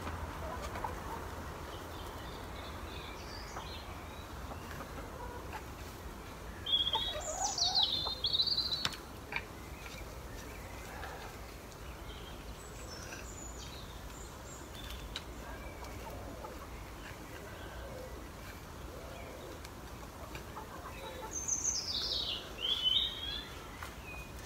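A small songbird singing two short, high, warbled phrases of falling notes, about seven seconds in and again near the end. In between there is faint rustling and scraping as a garden fork drags straw litter across the floor of a chicken run.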